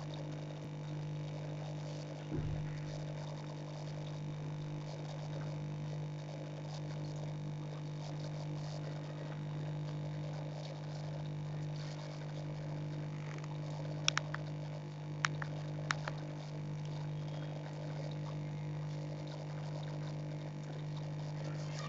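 Steady low hum of aquarium equipment running. A soft thump comes about two seconds in, and a few sharp clicks about two-thirds of the way through.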